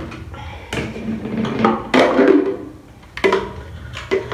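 Knocks and clatter of a Kenwood blender's plastic jug as it is lifted off the motor base and handled. The clearest knocks come about two seconds in, and again after three and about four seconds in.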